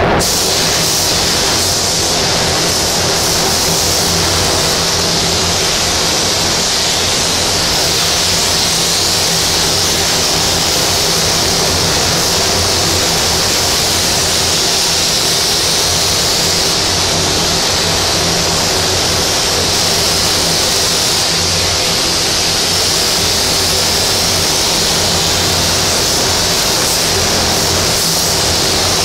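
Paint spray gun hissing steadily as it sprays, with a low steady hum underneath.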